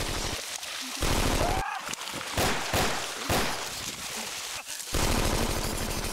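Battle sound effects: bursts of rapid machine-gun fire, with three single loud shots or blasts between them two to three seconds in. A short yell rises and falls during the second burst.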